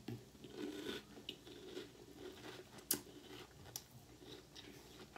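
Faint chewing and crunching of a mouthful of crunchy cereal in milk, with a few small sharp crunches; one is a little louder about three seconds in.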